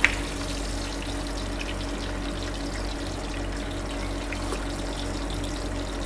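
Hot oil sizzling steadily in a deep-frying pot, over a low steady hum, with one sharp click right at the start.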